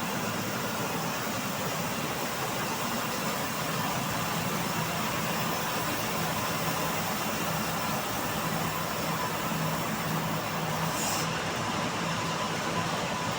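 Bandsaw mill running steadily over sengon wood, a continuous mechanical noise with a low hum; the high hiss drops away about eleven seconds in.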